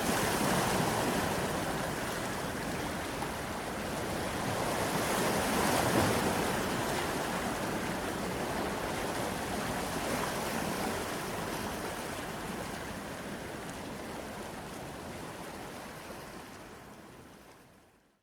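Sea waves breaking and washing on the shore, swelling twice, then slowly fading out to silence near the end.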